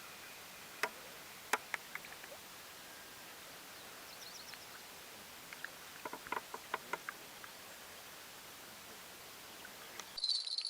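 Quiet outdoor background hiss with a few sharp clicks about a second in and a quick cluster of short clicks about six to seven seconds in, plus a brief faint high chirp about four seconds in.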